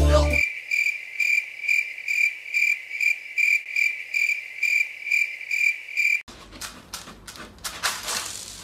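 Cricket chirping: high, evenly spaced chirps a little over twice a second, cutting off abruptly about six seconds in. Then scattered scratching as a cat digs in its litter tray.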